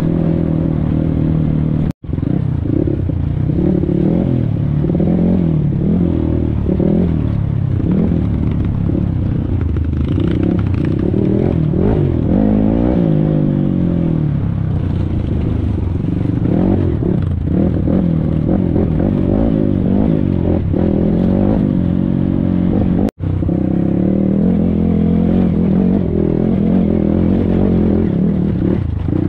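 A motor vehicle engine running, its pitch rising and falling as the revs go up and down. The sound cuts out for an instant twice, about two seconds in and again later on.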